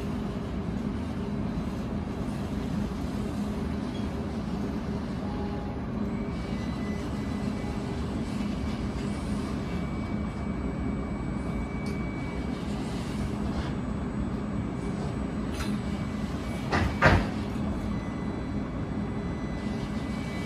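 Parked Brookville Liberty NXT streetcar humming steadily, its onboard equipment running at standstill, with one sharp clunk about 17 seconds in.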